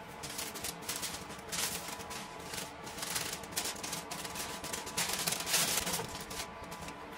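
A sheet of paper rustling and crinkling in irregular bursts as it is unfolded and pressed into a frying pan, loudest a little before halfway and again near the end.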